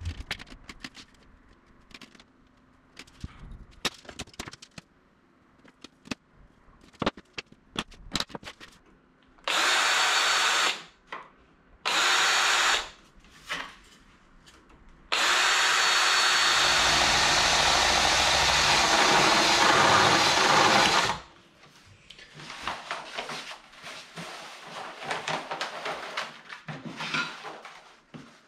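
Cordless drill drilling holes through an aluminum bulkhead flange, running in a short burst about ten seconds in, another about two seconds later, then a long steady run of about six seconds. Light clicks of parts being handled come before it, and rustling after.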